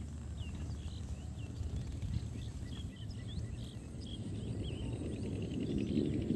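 Small birds chirping in quick, repeated short notes, over a steady low rumble that grows louder near the end.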